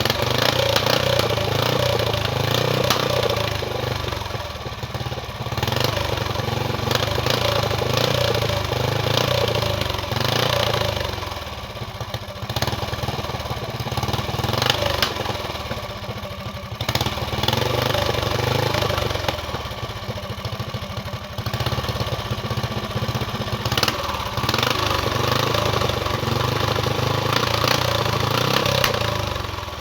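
An engine running and being revved up and down again and again, the loudness rising and falling every few seconds.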